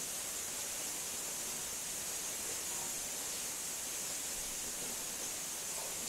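Steady rushing hiss of flowing stream water, even throughout and strongest in the high range.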